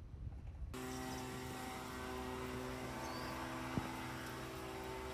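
Steady mechanical hum at a constant pitch over a low rumble, starting suddenly about a second in, with a single sharp click near the end.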